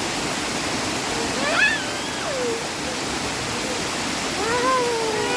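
Steady rushing of a tall waterfall, an even wash of falling water, with voices heard faintly over it about a second and a half in and again near the end.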